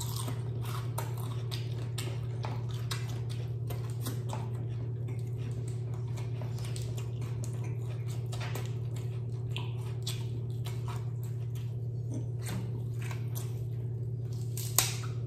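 Close-miked chewing and crunching of crispy fried chicken skin and lettuce: many short, irregular crackles over a steady low hum.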